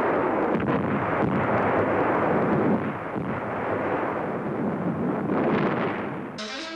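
Continuous din of battle: a steady rumble of artillery fire and explosions with a few sharper bangs. It gives way abruptly to music near the end.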